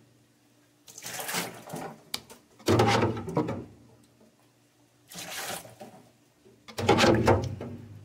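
Meltwater from a defrosted refrigerator being scooped with a small cup and tipped out, in four splashing bursts about two seconds apart. The second and fourth are the loudest.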